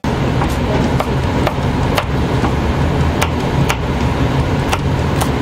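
Kitchen knife slicing a green pepper on a cutting board, with sharp cuts coming about twice a second over a steady background of music.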